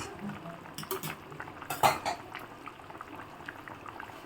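A spoon clinking and scraping against a cooking pot while stirring a chicken and vegetable stew, a few sharp clinks with the loudest a little under two seconds in.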